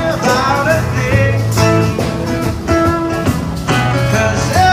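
Blues-rock style music with guitar and a singing voice, with bending guitar or vocal notes.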